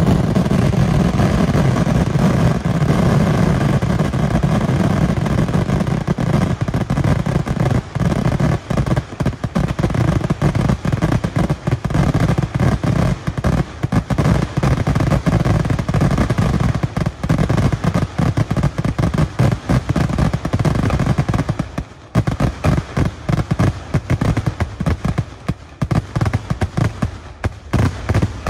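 Kerala temple-festival fireworks (vedikettu) salvo: a continuous barrage of bangs, at first so dense that they run together into one continuous wall of sound. About a third of the way in, the bangs separate into rapid individual cracks, and they thin out over the last few seconds.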